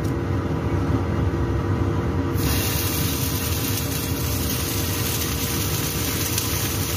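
Glutinous rice cake slices going into hot oil in a frying pan: a sizzling hiss that comes in suddenly about two and a half seconds in and then holds steady, over a steady low hum.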